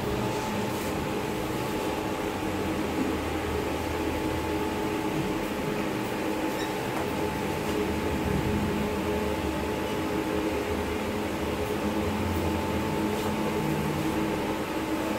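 Steady hum of an electric fan motor, with a few fixed tones over an even rushing noise.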